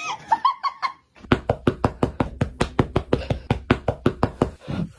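A rapid, even series of knocks, about six or seven a second, lasting about three seconds.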